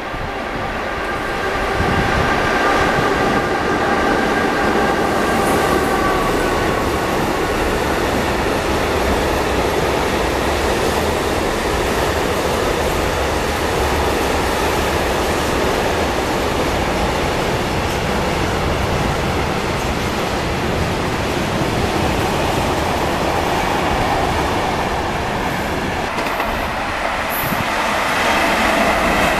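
A freight train of tank wagons running through the station: a steady rumble and clatter of wheels on rail that builds over the first two seconds, with a few high steady tones in the first several seconds. Near the end the sound swells again as another train draws near.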